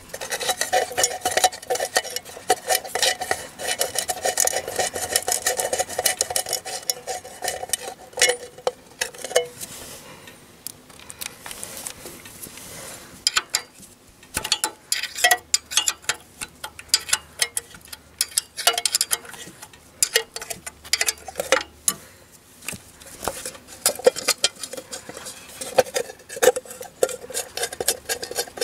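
Steel ring spanner working bolts on a tractor's steel cover plate: rapid metallic clicking and clinking, densest in the first nine seconds, then sparser clicks and knocks as the spanner is set down and the plate is handled.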